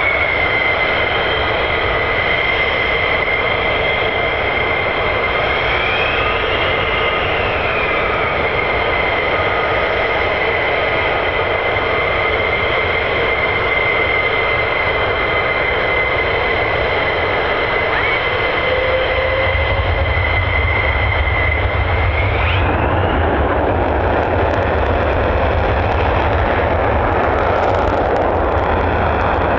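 Twin Pratt & Whitney F100-PW-229 turbofans of an F-15E Strike Eagle with a steady high jet whine, the pitch rising and falling briefly at one point. About twenty seconds in the low rumble deepens, and soon after the whine climbs and gives way to a fuller noise as the engines go to full power with afterburners lit for takeoff, with some crackling near the end.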